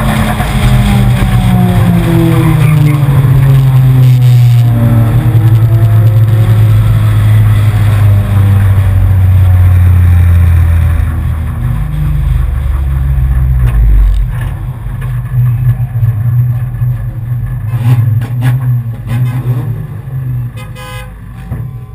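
A four-cylinder enduro race car's engine heard from inside the cabin, loud at first, its pitch falling steadily for about ten seconds as the car slows off the throttle. About fourteen seconds in it drops further to a low, uneven idle as the car rolls almost to a stop.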